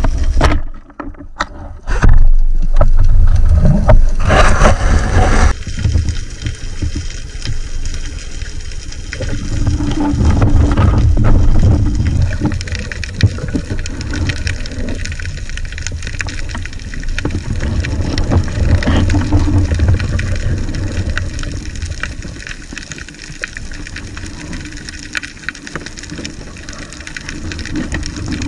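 Underwater noise picked up through an action camera's housing as a spearfisher swims: a low water rumble and rush that swells and fades over several seconds. A loud rushing noise fills a few seconds near the start.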